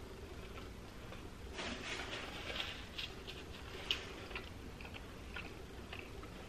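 Faint chewing of a mouthful of burger with the mouth closed: soft crunching about two seconds in, then a few small mouth clicks and smacks.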